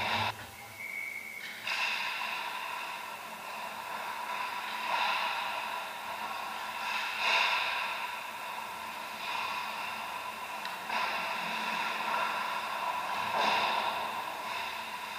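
Ice rink ambience during play: a continuous scraping hiss of skates on the ice that swells and fades every couple of seconds as players skate and stop. It cuts out briefly near the start.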